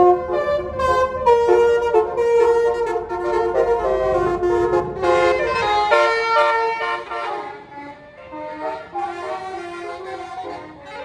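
Tour bus's Basuri multi-tone 'telolet' horn playing a quick melody of stepping notes, with the bus engine running underneath. The engine fades about six seconds in while the horn tune carries on more quietly.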